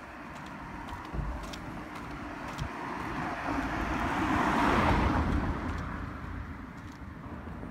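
A car passing, its tyre and engine noise swelling to a peak about halfway through and then fading away.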